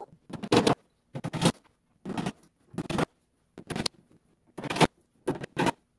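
Sped-up timelapse sound of flat-pack desk assembly: a string of short, abruptly cut bursts of clatter and handling noise on particleboard panels and hardware, about one a second.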